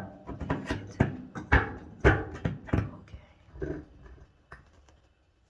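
A quick run of knocks and clanks from a hammer being jammed under a dryer drum to prop it up, some hits ringing briefly, dying down to a few light ticks after about three seconds.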